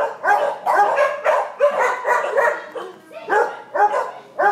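Dogs in shelter kennels barking over and over, short barks in quick succession with hardly a pause, easing briefly about three seconds in before starting up again.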